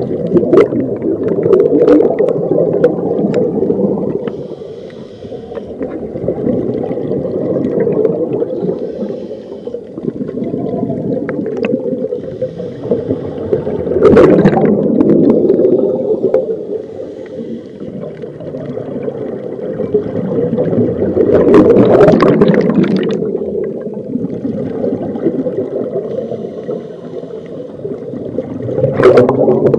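Scuba diver's regulator breathing heard underwater through an action camera's waterproof housing: a muffled, steady rumble that swells in slow cycles, with louder bursts of exhaled bubbles about every seven seconds.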